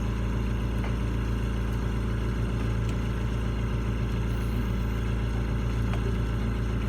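Steady low mechanical hum of machinery running, with a few faint clicks.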